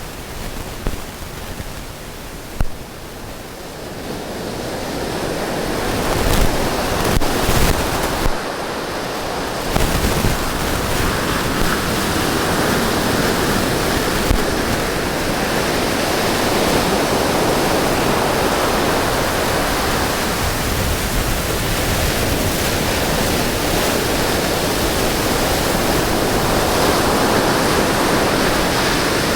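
Ocean surf breaking and washing up a beach: a steady rushing noise that swells over the first six seconds or so, then holds, with a few bumps of wind on the microphone in the first ten seconds.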